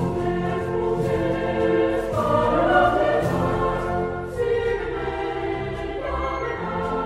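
Intro music: a choir singing long, held chords over a full instrumental backing, changing chord every second or so.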